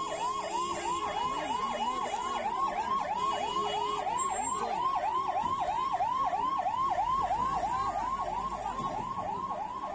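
Ambulance siren sounding in a fast yelp, its pitch sweeping up and down about three times a second.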